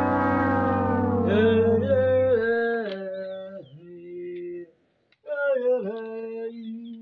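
Wordless chant-like singing in long held notes that step up and down in pitch, over a low drone during the first couple of seconds. It stops for a moment a little before five seconds in, then carries on.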